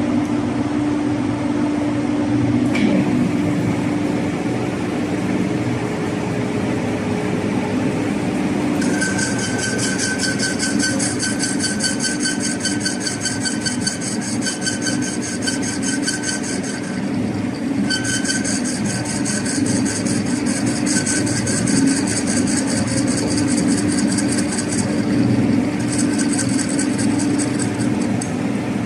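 Metal lathe running while machining a flange, over a steady low hum. About nine seconds in, a high, fast, chattering cutting sound starts; it stops and restarts twice before the end.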